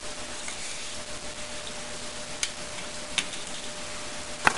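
A few light, sharp clicks, the last one near the end the strongest, over a steady faint hiss with a low hum.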